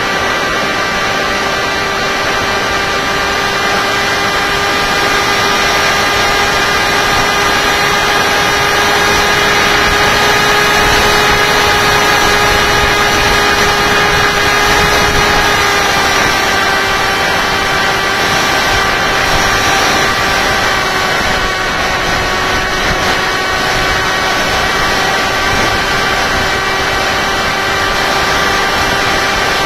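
Electric motor and propeller of a Tek Sumo flying wing in flight, picked up by its onboard camera: a steady high whine over rushing air noise, dipping slightly in pitch about halfway through.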